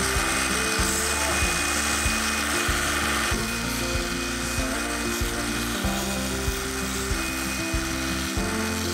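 Background music with a steady beat, over the hiss of a belt grinder as a hand-forged metal fishing spoon is held against its belt. The grinding hiss drops away about three seconds in.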